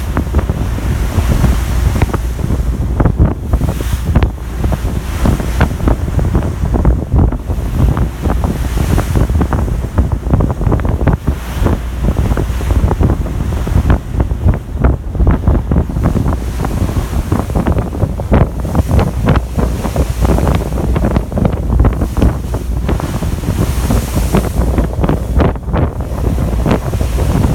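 Strong wind buffeting the microphone on a car ferry's open deck, in irregular gusts over a steady rush of the sea.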